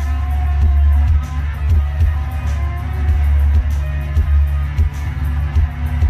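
Live amplified noise music: a loud, steady low bass drone with faint wavering tones and scattered crackles above it.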